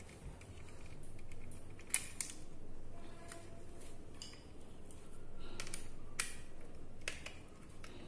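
Scattered light clicks and clatter of a plastic switch-socket plate, its terminals and a stripped wire being handled, with a sharp click about two seconds in and a couple more around six seconds in.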